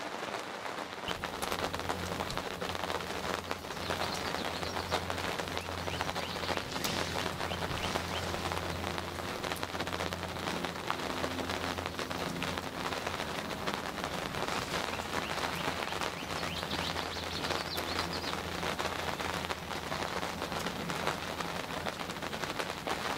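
Steady rain pattering on the fabric of a hunting ground blind, with many fine drop ticks. A low rumble runs underneath for about the first half.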